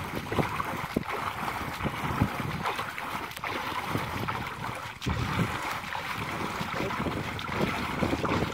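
Water splashing and sloshing as hands churn and scoop in shallow water, groping for fish, with wind buffeting the microphone.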